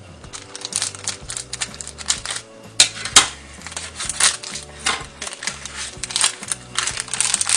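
Scissors snipping into a plastic blind-bag toy package and the packaging crinkling as it is handled: an irregular run of sharp clicks and crackles, the loudest two about three seconds in.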